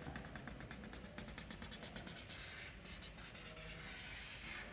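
Chalk drawing on a chalkboard, faint: a run of quick short scratchy strokes, then a longer scraping stroke a little past the middle.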